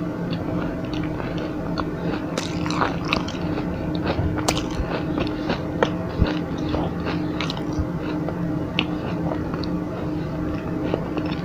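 Close-miked mouth sounds of someone biting and chewing a crispy chocolate roll snack: irregular crunches and chewing throughout, over a steady low hum.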